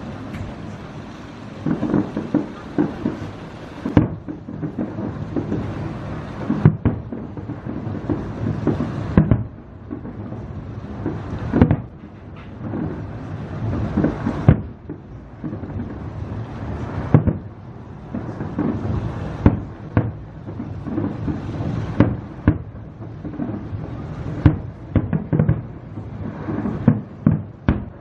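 Aerial fireworks display: an irregular run of shell bursts, each a sharp bang, over a constant low rumble of echoing explosions, with the bangs coming faster in the last few seconds.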